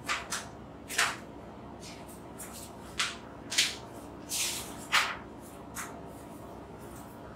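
Sheets of paper being handled and turned, a series of about eight short, crisp rustles spread irregularly across several seconds.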